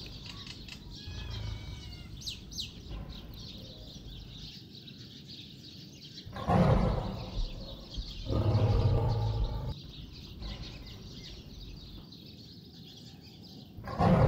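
Birds chirping over a faint outdoor background, then two loud, deep dinosaur growls about six and a half and eight and a half seconds in, each lasting around a second, and another begins right at the end.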